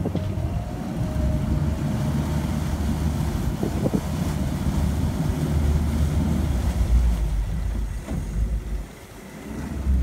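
Twin Mercury outboard motors running at low speed under joystick control, their propellers churning the water into wash, with wind buffeting the microphone. The sound drops briefly near the end.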